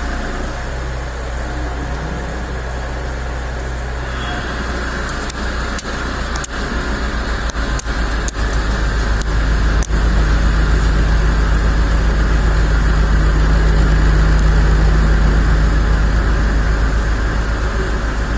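TCP V-500 three-axis CNC vertical machining centre running a drilling cycle: a steady machine hum, with a series of sharp clicks in the middle, then louder with a steady tone from about halfway through.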